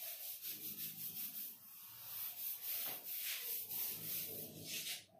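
Board duster wiping chalk off a chalkboard in a run of quick back-and-forth strokes, each a scratchy rubbing swish, with a brief pause about two seconds in.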